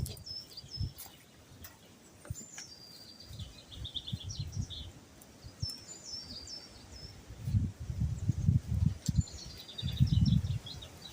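A songbird singing several short phrases of high whistled notes that run into trills, with pauses between them. Low thumps and rustles come in during the last few seconds.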